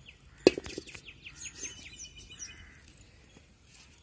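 An aluminium kadai set down on a brick stove, one sharp metallic clank with a brief ring about half a second in. A bird follows with a quick series of short chirps.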